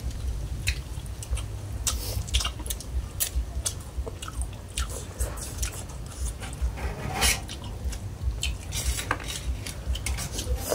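Metal spoons clicking and scraping against a shared tray of bamboo-shoot curry, with the chewing and mouth sounds of several people eating, over a low rumble.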